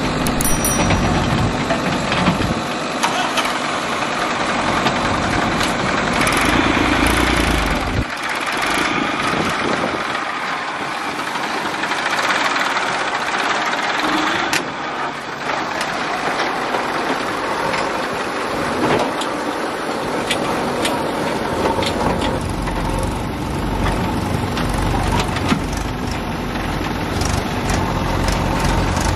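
Diesel farm tractors running while pulling trolleys loaded with earth, with a JCB backhoe loader's engine working alongside. The deep engine rumble thins out for a long stretch in the middle and comes back strongly near the end.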